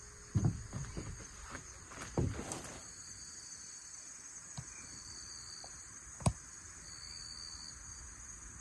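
Forest insects, crickets or cicadas, keeping up a steady high-pitched chirring, with one band cutting in and out. A few soft thumps come in the first couple of seconds, and one sharp knock about six seconds in.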